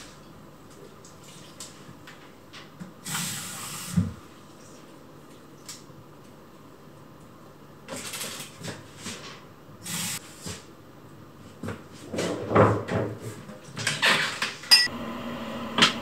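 Water poured from a glass into houseplant pots, with short spells of splashing, then plant pots and a glass knocked and set down on a kitchen counter in a run of clattering knocks near the end.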